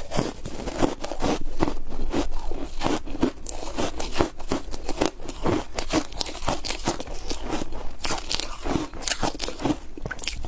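Close-up crunching and chewing of foam ice (soft, airy compressed ice), many rapid irregular crunches as it is bitten and chewed.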